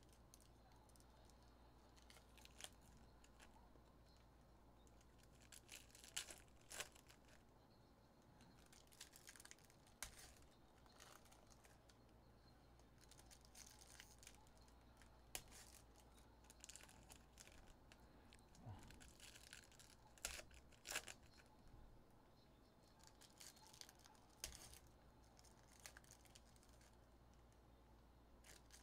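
Foil Panini Select trading-card packs being torn open and their wrappers crinkled as the cards are handled: faint, scattered rips and rustles over a low hum.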